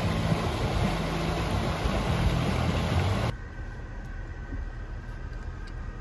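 Water of a rocky mountain stream rushing steadily. About three seconds in it cuts off suddenly to the quieter low rumble of a car heard from inside the cabin.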